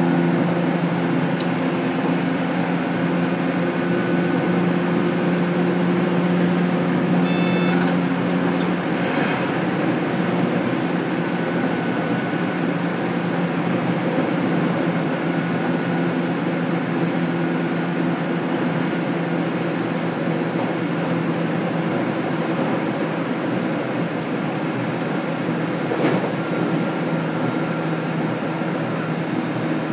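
Running noise inside the motor car of a JR Kyushu 817 series electric train at steady speed: rumble from wheels and rails under a steady hum from the traction motors. A short high-pitched whine comes about seven seconds in, and a single click near the end.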